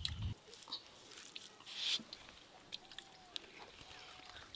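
Faint sounds of people eating by hand: quiet chewing, with small clicks and rustles as rice is mixed on a banana leaf, and a short soft hiss about two seconds in.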